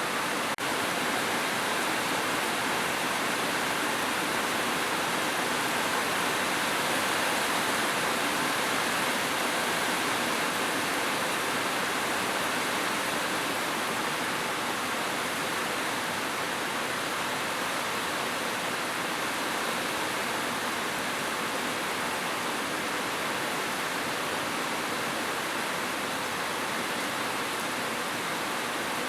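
Heavy rain falling steadily on a roof, an even, unbroken hiss of drops with no thunder, briefly dipping about half a second in.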